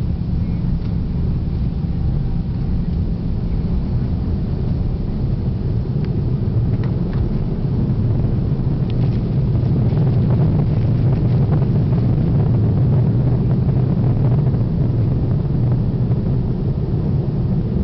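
Cabin sound of a McDonnell Douglas DC-10-30 on its takeoff roll and climb-out: the General Electric CF6-50 turbofans at takeoff power give a steady, deep roar and rumble. It grows louder about ten seconds in as the airliner rotates and lifts off, with a few faint rattles during the roll.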